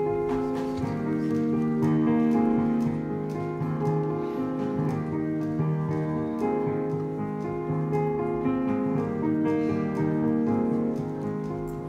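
Live pit band playing an instrumental passage of held chords, with piano prominent.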